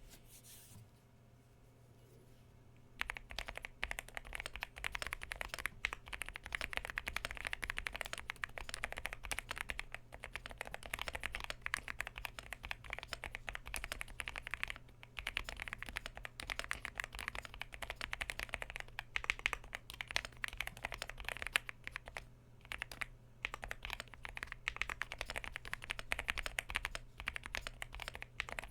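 Yunzii AL75 mechanical keyboard with Outemu Pink Jade switches and PBT keycaps being typed on: a fast, steady run of key clacks that starts about three seconds in, with a few short pauses.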